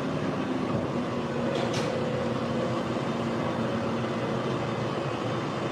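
Tractor engine running steadily while working a silage clamp, with a brief high hiss about one and a half seconds in.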